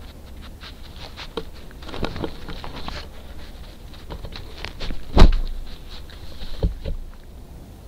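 A raccoon handling a trail camera, its fur and body rubbing against the housing close to the microphone. It makes a run of scratches and clicks, a loud knock about five seconds in, and two more thumps near the end.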